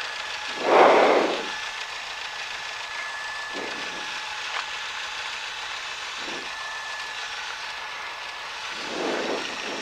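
Cessna 172's engine idling while the plane taxis, heard from inside the cockpit as a steady hum and hiss. A few short, soft whooshes come and go over it, the loudest about a second in.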